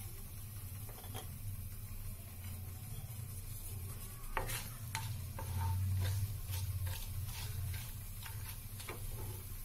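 Whole spices (cumin seeds, dry red chillies, star anise, cinnamon, peppercorns) sizzling gently in hot oil in a non-stick kadai, with a spatula scraping and tapping against the pan several times from about four seconds in. A low steady hum runs underneath.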